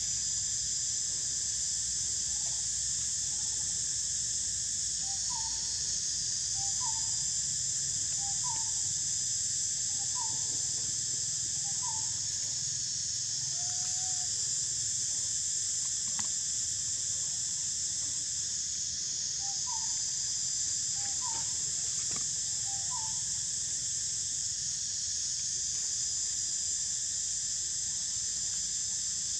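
Steady high-pitched drone of an insect chorus. Over it come short animal chirps, about one every one and a half seconds, in two runs: the first about five seconds in, the second near twenty seconds.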